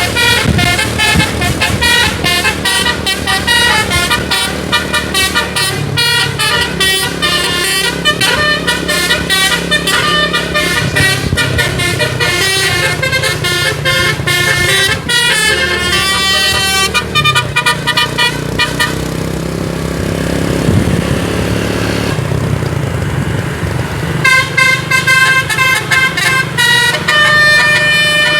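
Bravo Sierra bus telolet musical air horn playing fast runs of melodic notes, with many different tones. It stops for about five seconds two-thirds of the way through, leaving engine and road noise, then plays again near the end.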